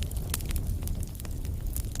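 Wood fire crackling: frequent sharp pops and snaps at irregular intervals over a steady low rumble of flames.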